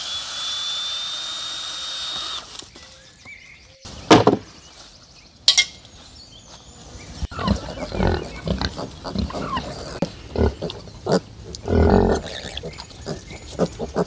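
A cordless handheld power tool runs on pallet wood with a steady high whine that rises slightly, then stops. Two sharp knocks follow, and from about halfway on pigs grunt repeatedly: a sow and her piglets.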